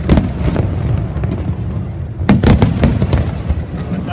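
Aerial fireworks bursting over a continuous low rumble of booms. A couple of sharp bangs come at the start, and a quick cluster of several cracks follows a little over two seconds in.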